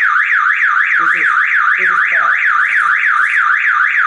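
Car alarm siren sounding continuously, a fast warbling tone rising and falling about four times a second. The alarm has been set off by the locked door being forced open.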